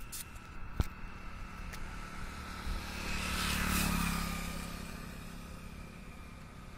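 A motor vehicle passing by, its engine hum swelling to a peak about halfway through and then fading away. A single sharp click about a second in.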